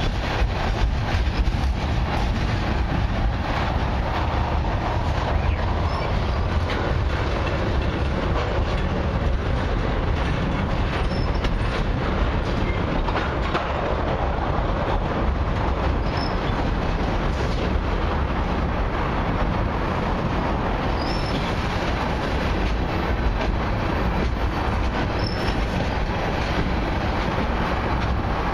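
Freight cars of a long train rolling past on the nearest track: a steady, even rumble of steel wheels on rail with clatter from the passing tank cars.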